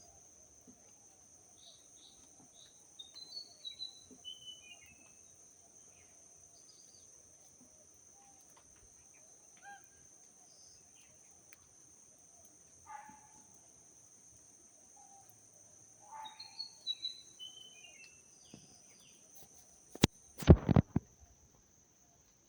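A songbird singing a short run of chirps that step down in pitch, twice, about thirteen seconds apart, with scattered single chirps between, over a steady high whine. Near the end come a few loud sharp knocks, the loudest sound.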